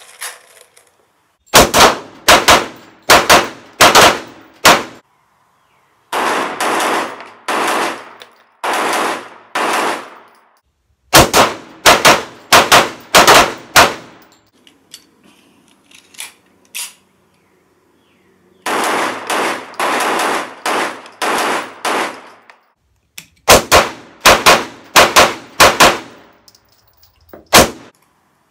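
STI 1911 pistol in 9 mm fired rapidly, in several quick strings of shots with pauses of a few seconds between.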